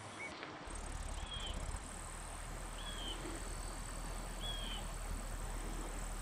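Rural field ambience: a steady hum of insects, with a bird giving a short, high, falling call about every second and a half. A low rumble comes in under a second in and stays under it.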